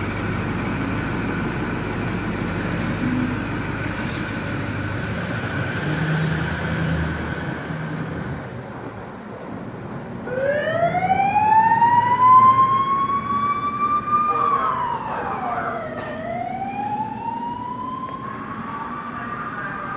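Vehicle engine noise, then about ten seconds in a fire engine's siren starts. It winds up in pitch, drops, and winds up again in a slow wail.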